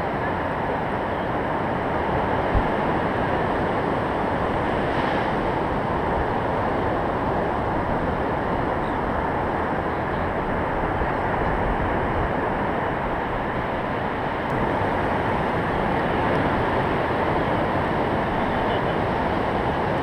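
Ocean surf: waves breaking and washing up a sandy beach, a steady rushing noise with little rise and fall. A single brief low thump comes about two and a half seconds in.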